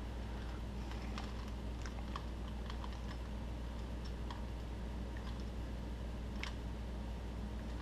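Rubik's cube being turned by hand, its plastic layers snapping round in irregular quick clicks, over a steady low hum.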